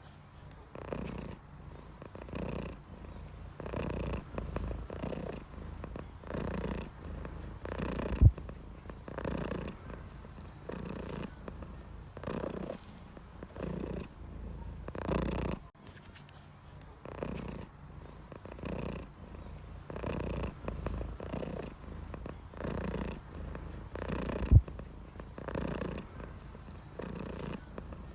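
Domestic cat purring steadily, the purr swelling and fading with each breath about once a second. Twice a sharp low thump stands out above it.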